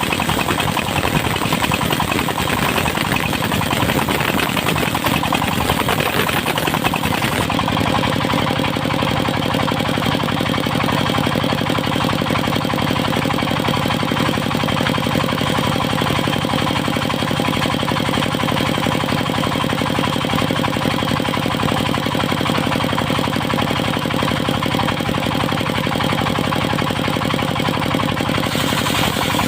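Diesel engine driving a circular sawmill, running steadily; about seven seconds in the hissy upper sound fades and the even engine drone comes to the fore.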